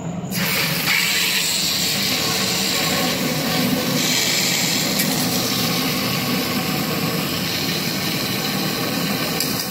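1:1 sugar syrup gushing from a garden hose into a plastic water jug: a steady rushing hiss that starts a moment in.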